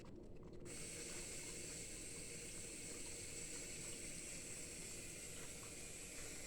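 LG dishwasher taking in water: a steady hiss that starts suddenly under a second in and runs on evenly, with a few faint ticks near the end.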